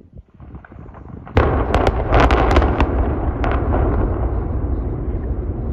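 Explosive demolition charges going off: a sudden loud blast about a second in, then a quick run of sharp cracks, then a long deep rumble as the structure comes down.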